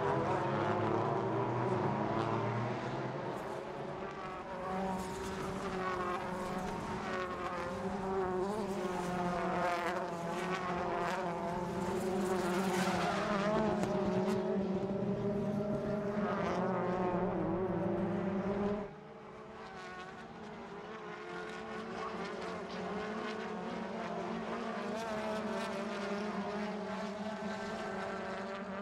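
Racing touring-car engines running hard, their pitch rising and falling again and again. The sound drops abruptly about two-thirds of the way in, and the engines carry on more quietly.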